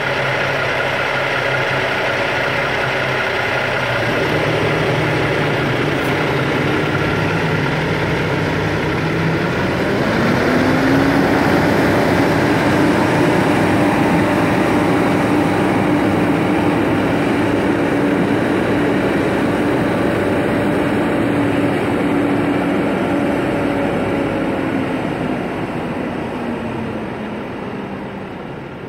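Volvo semi-truck's diesel engine running close by. About ten seconds in its pitch rises and holds higher as the truck pulls away, and the sound fades near the end as it moves off.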